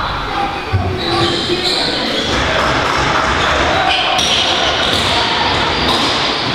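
Echoing game noise from a box lacrosse match in play: players' shouts and calls, mixed with thuds of the rubber ball and sticks on the hard floor.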